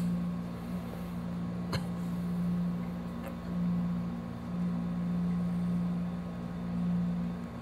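Steady low mechanical hum, with one sharp click a little under two seconds in.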